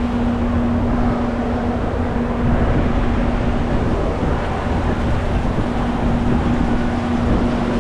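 Wind buffeting the microphone on an open cruise-ship deck over a steady machinery hum from the ship, heard near the funnel's vent grilles.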